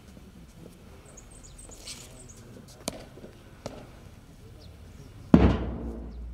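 Drill boots of NCC cadets striking stone paving: a few separate sharp stamps. Near the end comes one much louder sudden sound that fades over about a second.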